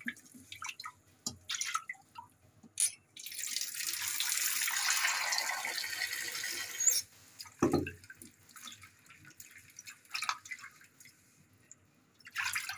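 Potatoes being washed in a cooking pan: hands splash and rub them in the water, then a tap runs into the pan for about four seconds, starting about three seconds in. There is a knock shortly after the tap stops, and a short splash near the end as the water is tipped out.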